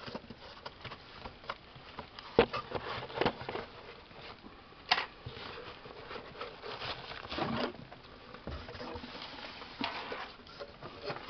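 Cardboard shipping carton and the boxed board game inside it being handled by hand: rustling and scraping of cardboard with scattered light knocks, and sharper knocks about two and a half and five seconds in.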